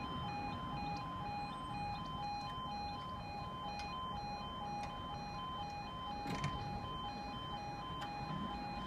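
UK level crossing warning alarm sounding as the barriers come down: an electronic yodel alternating evenly between two pitches. There is one brief knock about six seconds in.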